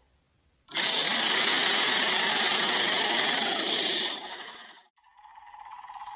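A loud, steady rushing noise, likely an edited-in sound effect, starts abruptly about a second in, holds for about three seconds and fades out. It is followed by a fainter steady hum near the end.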